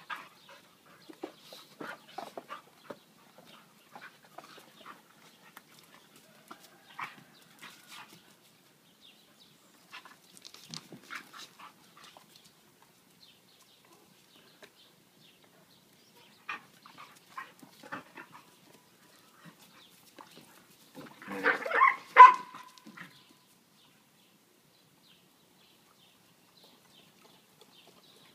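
Two dogs play-fighting: scattered short scuffles and dog noises, with a louder burst of dog vocalising about three-quarters of the way through.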